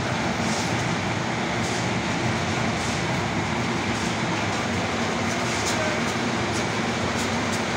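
A row of palm kernel oil expellers running together: electric motors driving the screw presses by belts, making a steady mechanical drone with a hum and faint light ticks.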